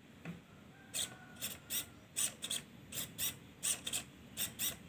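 Small electric motor of a homemade cardboard RC truck whirring in short, high-pitched bursts, two or three a second, as it is worked back and forth in quick jabs.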